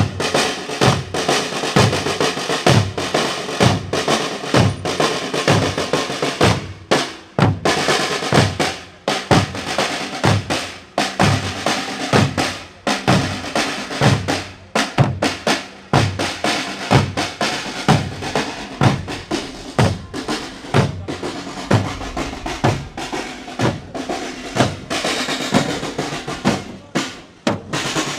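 A group of drummers playing a steady marching beat: bass drum strikes about three every two seconds under continuous snare-drum rolls.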